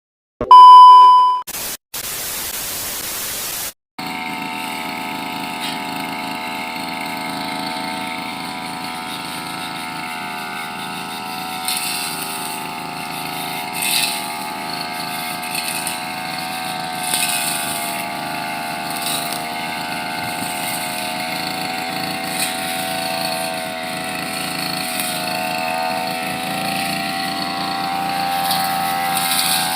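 A short loud beep and a burst of hiss, then from about four seconds in a brush cutter's small petrol engine runs steadily, its pitch wavering a little, with occasional brief sharp sounds as it cuts.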